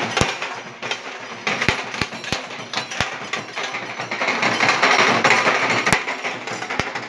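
Rapid, loud dhol drumming by a street drum band, a dense clattering beat with a few sharp knocks standing out.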